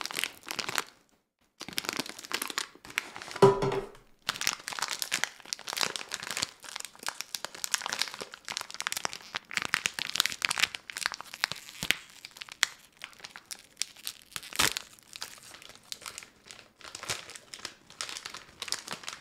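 Foil snack bag crinkling and rustling as it is handled and pulled open by hand. A single sharp clank with a short ring comes about three and a half seconds in.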